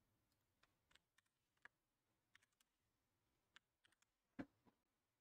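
Faint, scattered clicks of a computer keyboard and mouse in near silence, with one louder click about four and a half seconds in.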